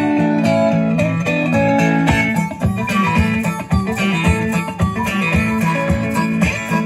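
Small live band playing a blues-rock tune: electric guitar and electric bass over steady conga drumming, with a harmonica played into a vocal microphone.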